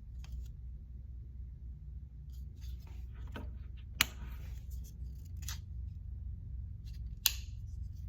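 Folding knife with a crossbar lock being worked by hand: two loud, sharp clicks about three seconds apart as the blade snaps, with fainter ticks and rubbing from handling in between.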